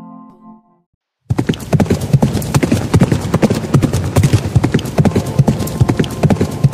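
Ambient music fades out. After a moment's silence, a troop of horses breaks into a gallop about a second in: a dense, rapid clatter of many hooves.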